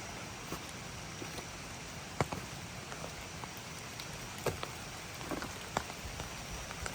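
Steady hiss of water, with scattered light ticks and taps over it.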